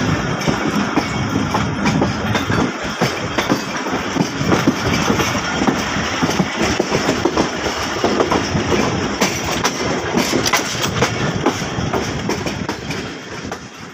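Passenger train running, heard from an open coach door: steady rumble with wheels clattering over rail joints and points, the clicks thickest about two-thirds of the way through. The sound fades out near the end.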